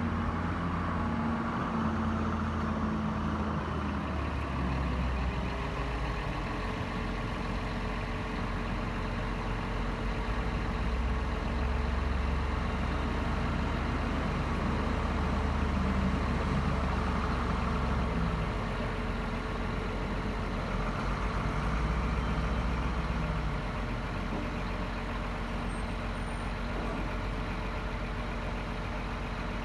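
Scania R420 truck's diesel engine running to power the loader crane's hydraulics, its speed rising and falling as the crane unfolds. A steady whine joins from about five seconds in.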